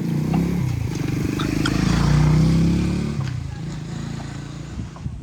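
A motor vehicle engine passing by, growing louder to a peak about halfway through, then fading away.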